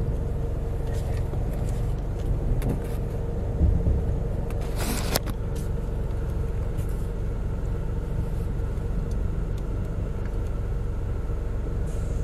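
A car's engine and tyres heard from inside the cabin as it rolls slowly forward: a steady low rumble with a faint constant hum. A short hissing burst comes about five seconds in.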